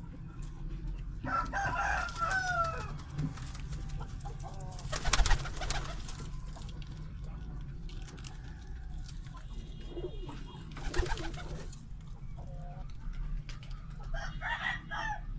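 Domestic pigeons cooing, with a rooster crow and hen clucks mixed in: higher gliding calls twice, near the start and near the end. Two short, loud bursts of noise stand out, about five and eleven seconds in.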